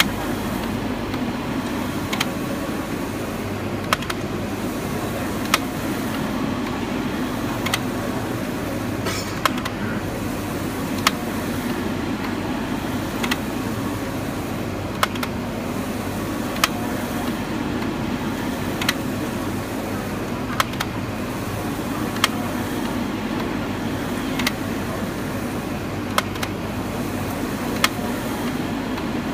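SP2518 UV flatbed printer running a print job: a steady mechanical hum from the moving print carriage and its fans, with a sharp click about every two seconds.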